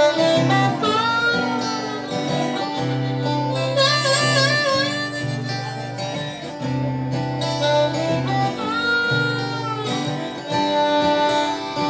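Harmonica solo played cupped into a hand-held microphone, with bent notes and a wavering vibrato passage, over a strummed acoustic guitar.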